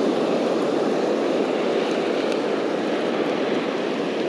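Steady rushing of surf breaking on the beach, mixed with wind on the microphone.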